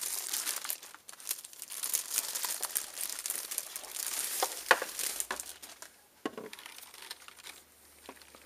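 Keyboard packaging crinkling and rustling as it is unwrapped, busy for about the first five seconds, then quieter with a few odd clicks.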